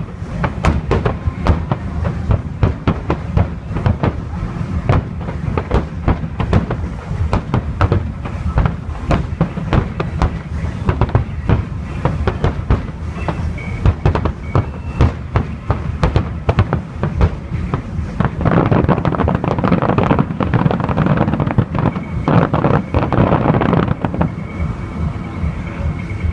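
Fireworks display: a continuous rapid barrage of shell bursts, with many bangs a second. The barrage becomes louder and denser for several seconds about two-thirds of the way through.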